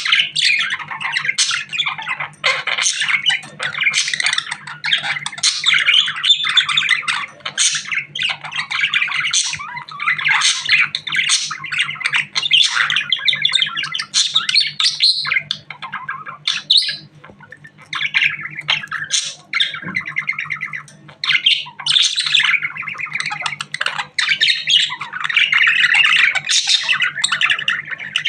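Budgerigar chattering and chirping almost without a break, a fast run of warbles and squawks, with a couple of short lulls past the middle. A steady low hum runs underneath.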